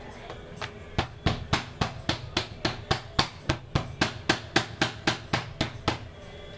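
Hand patting the upturned bottom of a metal baking pan: about twenty sharp knocks at close to four a second, starting about a second in and stopping near the end, to loosen the cake so it drops out of the pan.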